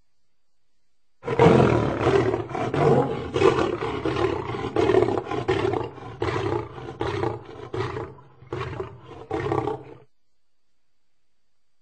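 Lion roaring: one loud full roar, then a run of shorter roars, each weaker than the last, stopping near the end.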